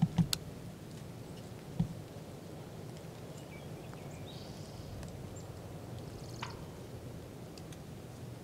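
Quiet outdoor ambience with a few sharp knocks near the start and one about two seconds in, and faint bird chirps in the middle.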